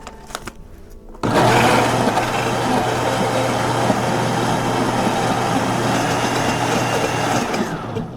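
An electric countertop kitchen appliance motor switched on about a second in, running loudly and steadily as it mixes the cake ingredients, then winding down near the end.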